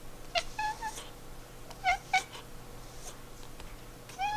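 Tabby cat giving short chirps. There is a broken chirp about half a second in, two quick chirps around two seconds, and a rising chirp near the end.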